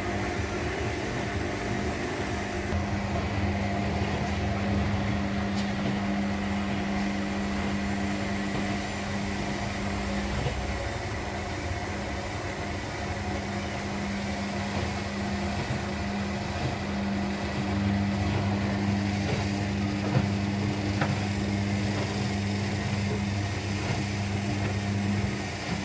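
Several washing machines running at once, a steady motor hum over drum noise. A deeper hum joins about two-thirds of the way in and stops near the end.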